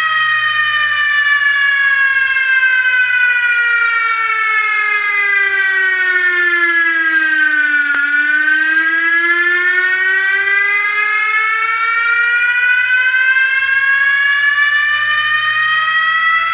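Fire truck siren wailing: one long, slow fall in pitch over about eight seconds, then an equally slow rise back up, with a short click at its lowest point halfway through.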